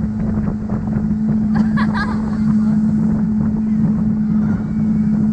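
Motorboat engine running at a steady drone, with wind buffeting the microphone. A brief wavering higher sound, like a distant voice, comes about a second and a half in.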